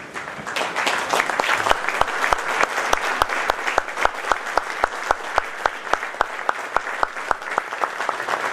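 Crowd applauding: dense clapping from many hands, with one set of sharp, evenly spaced claps about three a second standing out above the rest.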